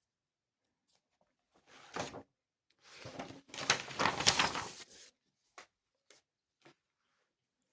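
Paper rustling and handling noise, with a short rustle, then a longer rustle of about two seconds: a page of a reading workbook being turned. Three light clicks follow.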